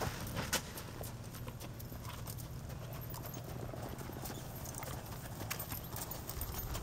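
Black Forest horse walking on arena sand, its hooves giving a soft, steady clip-clop with a few sharper clicks, over a low steady rumble.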